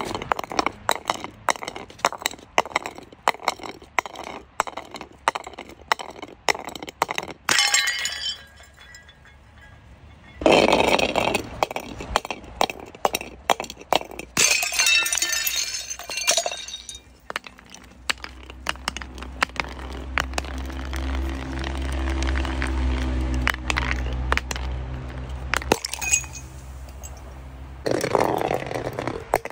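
Glass bottles breaking, with many sharp clinks and crunches of shards and several louder shattering crashes. A low steady hum runs under it for several seconds past the middle.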